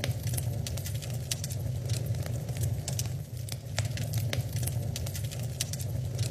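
Wood fire in a fireplace crackling: irregular sharp pops and snaps over a steady low rumble of the flames.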